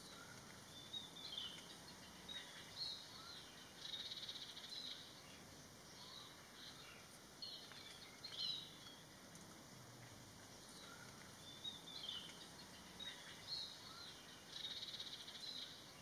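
Faint, scattered high-pitched bird calls: short chirps, with a quick buzzy trill about four seconds in and another near the end, over a low background hiss.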